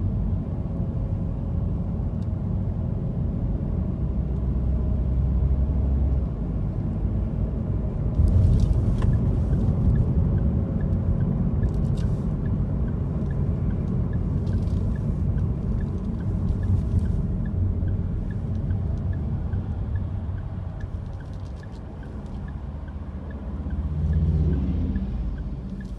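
Car driving on city streets, heard from inside the cabin: a steady low rumble of engine and road noise, with a few brief clicks and, from about a third of the way in, a faint even ticking. The rumble swells briefly near the end, then drops off as the car slows.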